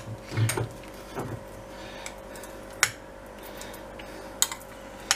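A spoon clinking sharply against a glass jar and a metal tray, about five separate clicks, while pepper paste is scooped out and dropped onto the tray. A faint steady hum lies underneath.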